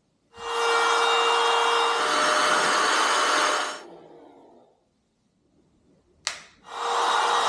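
Cordless compact router running at full speed with a steady whine for about three seconds, then winding down as it is switched off; a sharp click follows, and the router starts up again near the end. It is cutting the recess for a flush finger pull in a wooden door.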